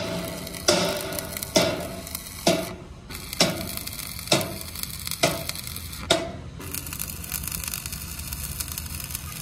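Hand hammer striking steel plate: seven evenly spaced blows just under a second apart, each with a short metallic ring. The blows stop about six seconds in, leaving a steady hiss.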